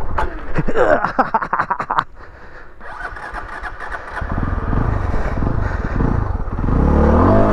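Single-cylinder engine of a Beta ALP 4.0 dual-sport (Suzuki DR350 engine) lugging and stuttering at low speed, then cutting out about two seconds in: a stall on a slow, tight turn. It is restarted and runs unevenly, then revs up near the end.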